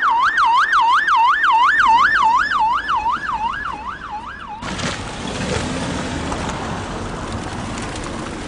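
Ambulance siren in a fast wail, rising and falling about three times a second and slowly fading. It cuts off suddenly a little past halfway and is followed by a steady rushing noise.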